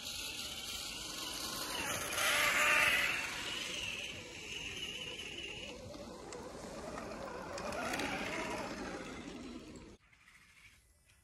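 Electric motor and gearbox of an RC scale crawler truck whining as it ploughs through deep snow, the pitch rising and falling with the throttle. It cuts off abruptly near the end.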